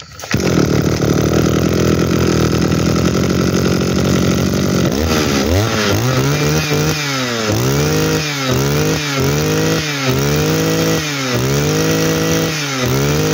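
Kioritz 23 cc two-stroke brush-cutter engine catching on the first pull of its recoil starter and running steadily for about five seconds. It is then revved up and down about once a second, eight or nine times.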